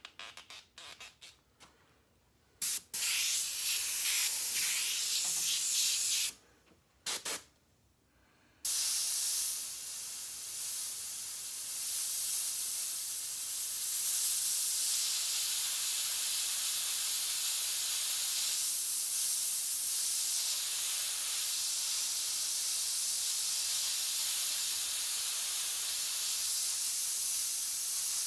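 Airbrush spraying paint: a few quick short spurts, then two brief hissing passes, then a long, steady hiss of air and paint from about nine seconds in.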